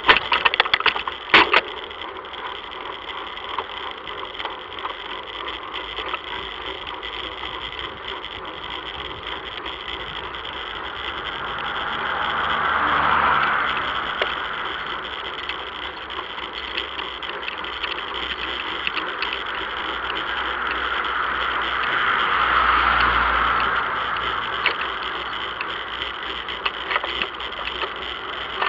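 Bicycle rolling along a paved street, heard through a bike-mounted action camera: steady rolling noise with rattling and sharp knocks from the bike and camera mount over the road surface. The knocks cluster near the start, and the rolling noise swells louder twice, around the middle and near the end.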